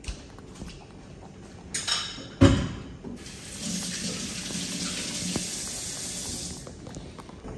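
A thump with some clatter about two and a half seconds in, then a kitchen tap running steadily for about three seconds before it stops abruptly.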